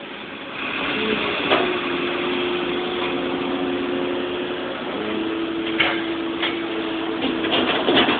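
Excavator engine and hydraulics working under load as the full bucket swings, with a steady whine that shifts slightly in pitch about five seconds in. A few sharp knocks, and a clatter near the end.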